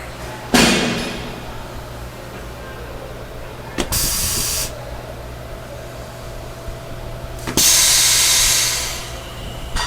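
CNC lathe running with a steady low hum, broken by three sudden hissing bursts: one about half a second in that fades over a second, a short one near four seconds, and a longer, louder one from about seven and a half seconds that dies away.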